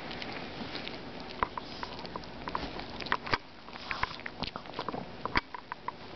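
A Pomeranian chewing and gnawing a treat, irregular sharp clicks and crunches of its teeth over a steady low hiss.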